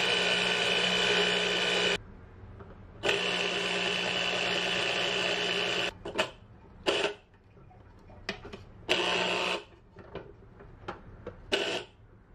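Electric citrus juicer motor whirring as a lime half is pressed onto its spinning reamer. The motor stops about two seconds in and starts again a second later for about three seconds. After that come plastic clicks and knocks as the clear lid is handled over the reamer, with one short run of the motor in the middle.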